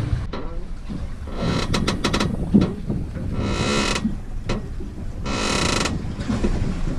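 Padded boat seat creaking three times, each creak under a second and about two seconds apart, as the boat rolls in the swell.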